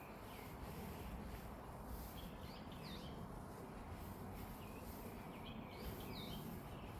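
Small songbirds chirping in short calls, in three brief clusters, over a steady low background rumble.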